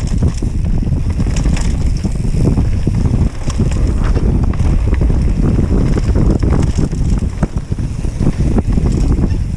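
Mountain bike descending a dirt trail at speed: heavy wind buffeting on the microphone and tyre rumble, with frequent clicks and rattles from the bike.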